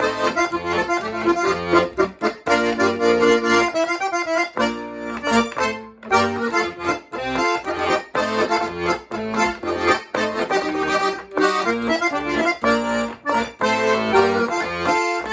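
Baldoni-Bartoli piano accordion playing a polka: a melody on the treble keys over a rhythmic bass and chord accompaniment.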